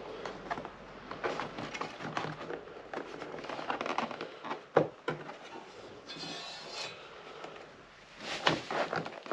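A boat helm dashboard mount panel being handled and fitted into its dash console by hand: scattered light knocks, taps and rubbing. A sharper knock comes about five seconds in, a short scraping hiss a little after six seconds, and a quick run of knocks near the end.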